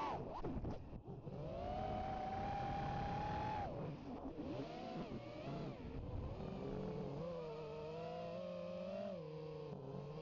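FPV racing quadcopter's brushless motors and propellers whining, heard from the camera on the drone. The pitch swoops up and down with the throttle: a quick dip and climb in the first second, a high held note for a couple of seconds, then a lower, wavering whine that drops again near the end.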